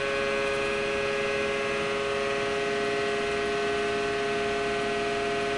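Steady machine hum of a concrete compression testing machine's hydraulic pump running, several steady tones held at an even level. No cracking or breaking of the concrete is heard.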